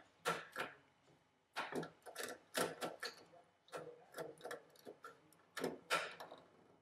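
Irregular clusters of sharp clicks and light metallic scraping as a wire is fitted and its screw tightened at a generator controller's terminal block.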